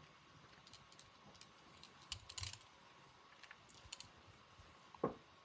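Faint scattered clicks and light taps from small fly-tying tools and the hook being handled at the vise, with a few quick clicks about two and a half seconds in and one sharper knock about five seconds in.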